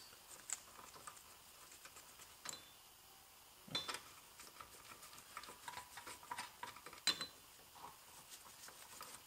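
Faint, irregular metallic clicks and clinks of a hand wrench on the nuts holding the rear axle shaft to the axle housing, as they are tightened down.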